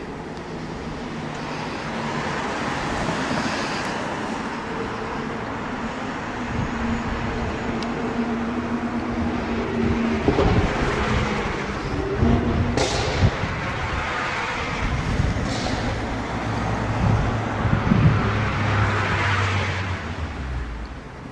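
Lamborghini Diablo VT 6.0 SE's 6.0-litre V12 running while the car stands still, the engine note shifting and swelling several times around the middle and again near the end.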